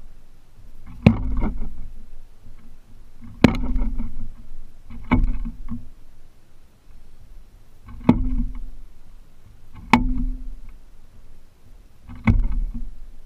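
A belted kingfisher beating a fish it holds in its bill against its wooden perch post: six sharp knocks a second or two apart, each with a brief low ring. Kingfishers beat a catch like this to stun it before swallowing it.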